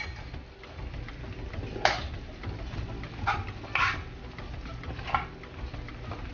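Wooden spatula stirring thick khoya in a frying pan, with a few short scrapes against the pan.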